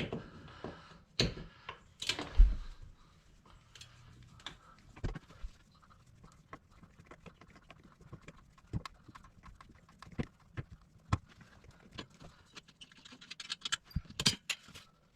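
Scattered clicks, taps and knocks of hands working at a wall access cover and its screws, with one louder thump about two and a half seconds in and a quick run of clicks near the end.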